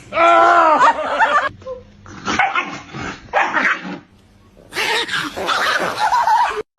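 A dog vocalizing: a drawn-out, wavering whine-like call in the first second and a half, then a run of short barks and yips.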